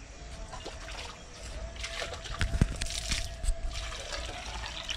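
Water being poured by hand into a plastic jug, trickling and splashing, heaviest about two to three and a half seconds in.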